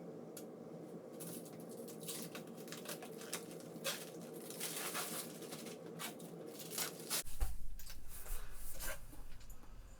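Rustling, rubbing handling noise with scattered clicks over a steady hum. About seven seconds in, the hum gives way abruptly to a low rumble.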